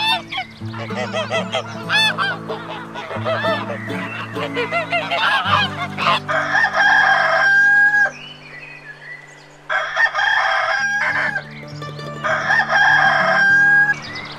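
A rooster crowing three times, each crow ending on a long held note, after a run of rapid short bird calls. Soft background music with steady low notes runs underneath.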